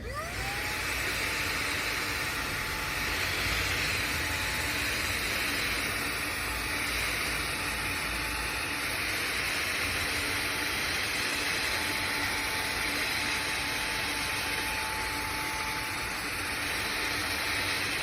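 Xiaomi Mijia cordless handheld vacuum cleaner switched on: its motor spins up with a rising whine over the first second, then runs steadily with a high whine over rushing air.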